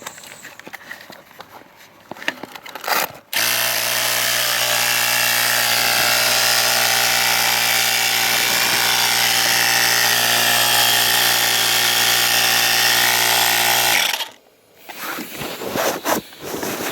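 Small Slime portable tire compressor switched on, its electric motor running with a steady buzzing hum and hiss for about ten seconds before cutting off suddenly. Faint handling noises come before it starts and after it stops.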